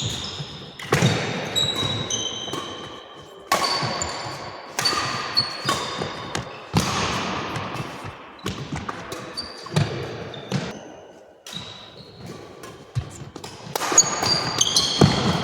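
Sharp hits at irregular intervals, each ringing out in a large hall's echo, with short high squeaks between them like shoes on a court floor.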